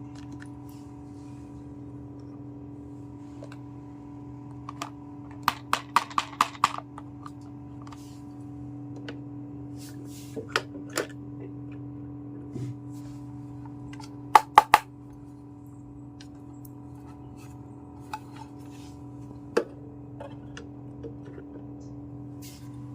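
Small hard pieces of a miniature toy kitchen set clicking and tapping as they are handled and set down, in sparse groups: a quick run of about five, later three sharp ones close together, then single taps. A steady low hum runs under it all.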